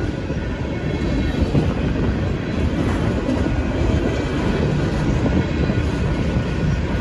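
Freight train tank cars rolling past at steady speed: a continuous low rumble of steel wheels on the rails.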